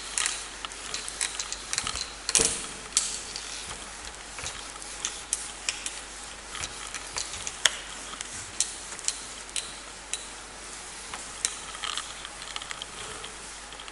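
Handheld whiteboard eraser wiping across a whiteboard: scratchy rubbing strokes with many sharp little clicks and taps, the loudest knock about two and a half seconds in.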